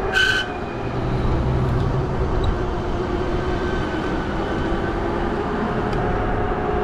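Riding noise from a fat-tire e-bike: steady wind rumble on the microphone, tyre noise and a steady motor hum, with a brief high squeak right after the start.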